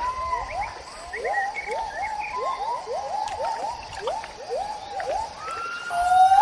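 Gibbons singing: a quick run of short, rising whooping notes, several a second, then a longer held note and a louder call near the end.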